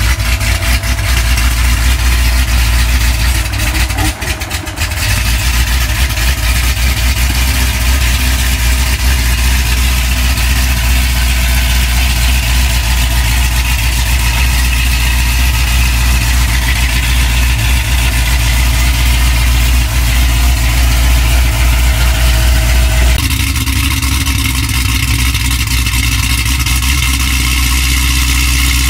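Car engine idling with a steady low drone; the sound changes abruptly about 23 seconds in.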